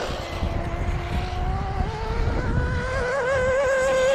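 Small nitro-powered RC car's two-stroke glow engine screaming at high revs. Its pitch climbs over the first two seconds as the car accelerates, then wavers up and down with the throttle. Wind rumbles on the microphone underneath.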